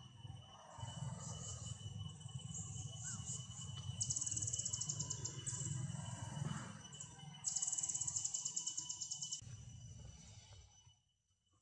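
Insects buzzing: a steady high whine runs throughout, and two loud, rapidly pulsing trills come about four and about seven and a half seconds in, each lasting one to two seconds. A low rumble lies underneath, and the sound drops away near the end.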